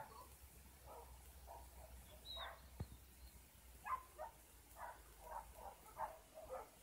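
Dogs barking, faint, in short irregular barks that come a couple of times a second, with one brief high chirp about two and a half seconds in.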